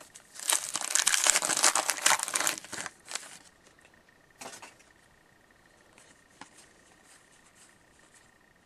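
A 2013-14 O-Pee-Chee hockey card pack's wrapper being torn open and crinkled by hand for about three seconds, followed by faint ticks of the cards being handled and flipped through.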